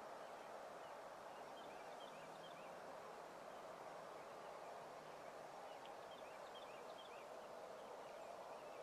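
Wild turkeys gobbling faintly at a distance over a steady, quiet outdoor hiss, with a few small high chirps in two brief clusters.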